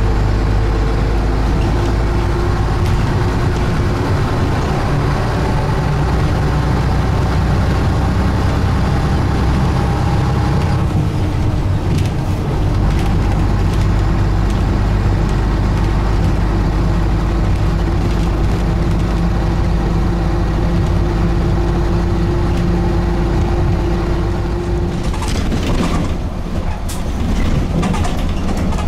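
Ikarus 280.54 articulated bus's diesel engine running while under way, a steady engine drone whose note changes about eleven seconds in. A short run of clatters and knocks comes near the end.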